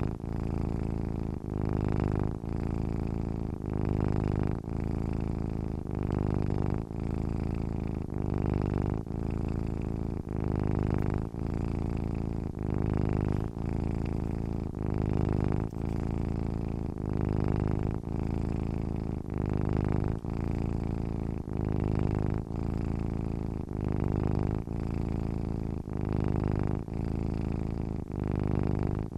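Domestic cat purring while asleep, steady and rhythmic, rising and falling with each breath about once every second and a quarter, with a brief dip between breaths.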